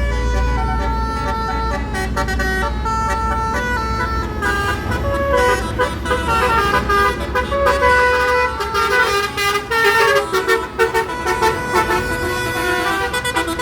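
Indonesian 'telolet' multi-tone bus horn playing a tune of short, steady notes in quick succession, the notes coming faster in the second half, over the low rumble of a bus engine.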